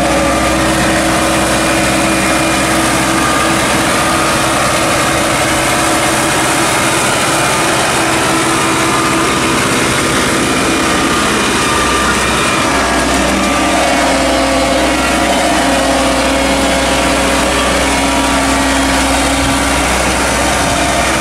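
Diesel engine of an Iseki crawler tractor running steadily under load as it drives down into a paddy field. The engine note changes about two-thirds of the way through.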